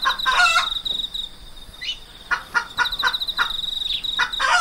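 Tropical riverside ambience: an insect trilling steadily at a high pitch, with a bird calling in short chirps, a quick run of about five notes a second in the middle and more near the end.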